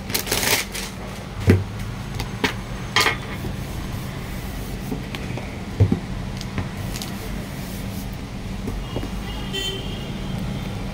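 Handling noise from a black hardbound book with gold embossing being lifted and laid on a glass counter: a few sharp knocks and dull thuds in the first six seconds, over a steady low hum.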